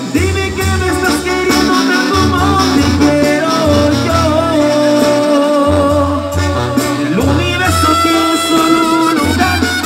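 Live Mexican banda music played loud through the sound system: held brass and reed melody lines over a pulsing tuba bass, during a romantic song.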